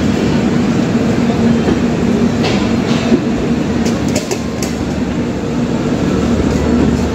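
LHB passenger coaches of an arriving express train rolling past close by: a steady rumble with a low hum, and a few sharp wheel clacks over the rail joints between about two and four and a half seconds in.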